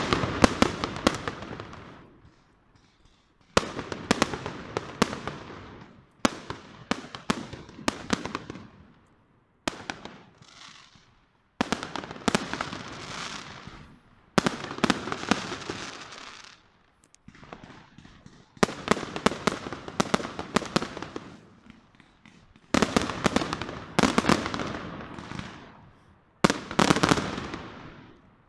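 Fireworks going off: sharp bangs and cracks followed by fading crackle. They come in about ten bouts of a few seconds each, every one starting suddenly and trailing off, with short silences between.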